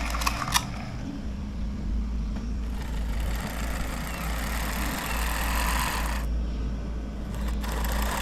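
Track drive of a 3D-printed RC excavator running, its DC motors turning the plastic tracks through 3D-printed ring ratio difference drive gearboxes: a steady mechanical whir over a low rumble. The whir stops for about a second a little after six seconds in, then starts again.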